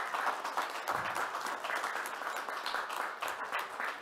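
A small group applauding: many hands clapping steadily and densely.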